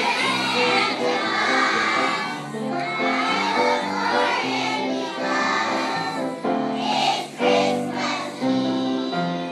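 A group of young children singing a Christmas song together, with instrumental accompaniment.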